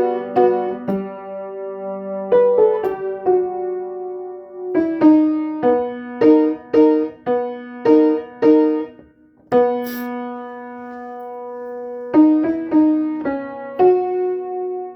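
Piano played slowly, single notes and chords ringing into each other. There is a short break about nine seconds in, then a long-held chord before the playing resumes. It is a run-through by someone still learning the piece.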